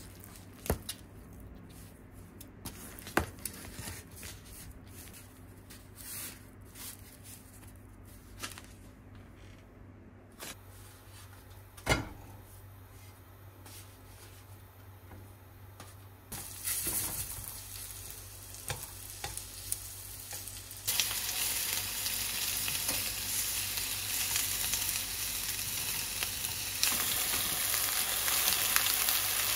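Thin-sliced pork sizzling in hot oil in a frying pan over medium heat. The sizzle starts a little past halfway, gets clearly louder soon after, and swells again near the end as sliced onion goes in. Before that there is only faint handling of the pork in its foam tray as it is mixed with potato starch, with a few sharp taps.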